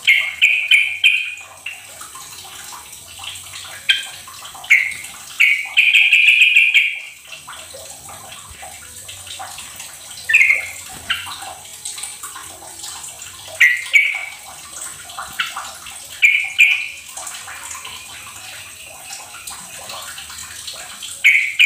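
Yellow-vented bulbul (trucukan) calling in short bright bursts every few seconds, the longest lasting about a second and a half, over a steady hiss.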